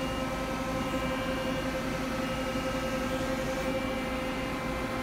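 Mori Seiki SL-65A CNC lathe's geared-head spindle running in second gear: a steady machine hum made of several held tones.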